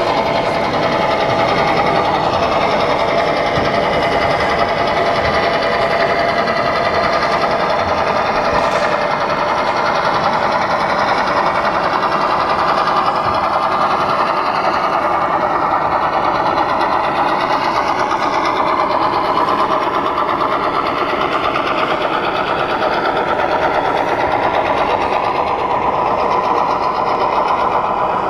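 Model diesel locomotive running along the track, its electric motor and gears whining steadily, the pitch slowly rising and falling.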